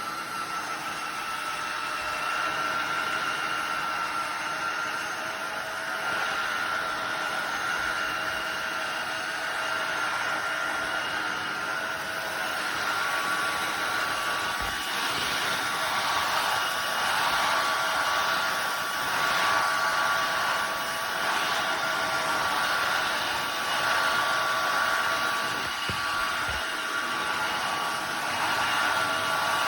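Tineco iFloor 5 Steam wet-dry floor cleaner running in steam boost mode: its suction motor runs steadily with a high whine. About halfway through a second whine tone joins and the sound starts to waver.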